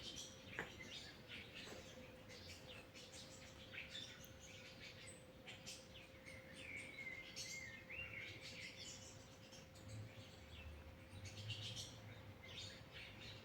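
Faint birds chirping, with a few soft clicks and a thin steady hum.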